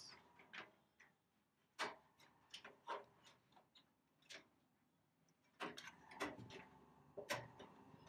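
Faint, separate clicks and knocks of a computer power supply unit being handled and fitted into a steel PC case, a few scattered at first and bunched together in the last few seconds.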